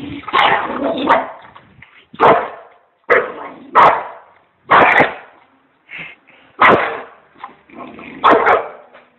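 Dog barking in repeated short, loud bursts, roughly one a second, while guarding its food bowl from a reaching hand.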